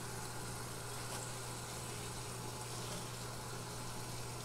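Bathroom sink tap running steadily, water splashing into the basin, over a low steady hum.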